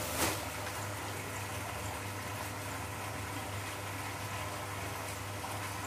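Borewell pump set running: a steady electric hum under an even rushing noise, with one short knock just after the start.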